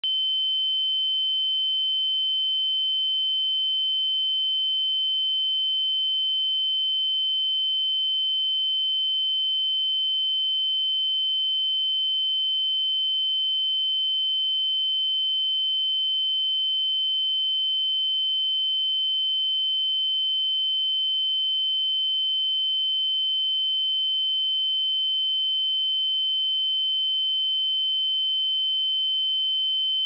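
A pure 3073 Hz sine-wave test tone: a single high-pitched steady beep held at a constant level, with no other sound.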